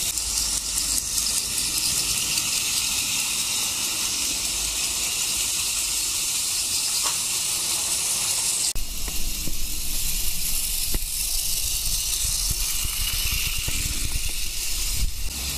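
A steady hiss that changes slightly in character about nine seconds in.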